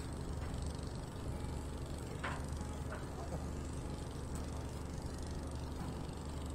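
Boat's engine running steadily on the vessel, a low even hum with no change in speed.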